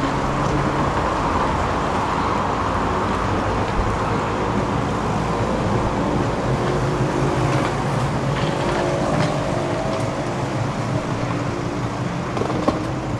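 Steady traffic noise with a low engine hum, and a few faint clicks.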